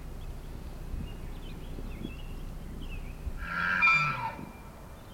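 Rutting bull elk bugling once, about three and a half seconds in: a short high whistle with a low growl beneath it that drops in pitch.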